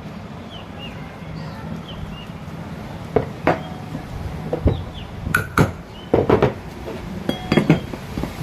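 Metal clinks and knocks of tools and ceiling-fan parts being handled while the fan's ball bearings are changed. The strikes come irregularly from about three seconds in, over a low steady hum.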